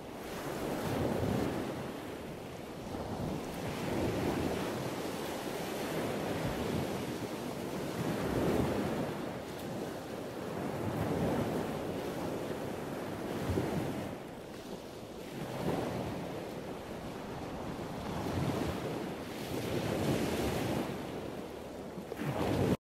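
Ocean surf: waves breaking and washing up a beach, swelling and falling back every few seconds, then cutting off abruptly.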